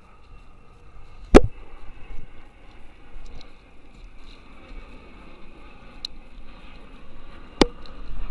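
Light water and wind noise around a plastic fishing kayak on open water. Two sharp knocks stand out, one about a second in and one near the end, with a faint click between them.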